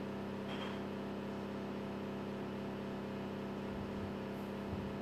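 A steady low machine hum, with one held tone and evenly spaced overtones, as from a running kitchen appliance motor; a few faint soft knocks near the end.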